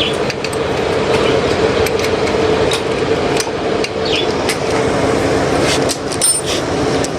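Irregular metallic tapping and clinking on the parts of an electric water-pump motor during bearing replacement, over a continuous steady hum.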